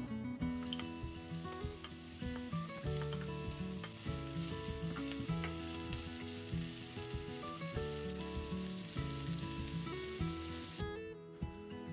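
Chopped red onion frying in olive oil in a nonstick pan: a steady sizzle with a wooden spatula stirring through it. The sizzle starts about half a second in and stops shortly before the end.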